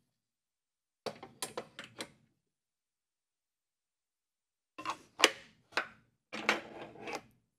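Short knocks and clatters of a wooden box side being handled and set against the metal clamping face of a Shaper Workstation: a small cluster about a second in, then a louder run of sharp knocks over the last few seconds.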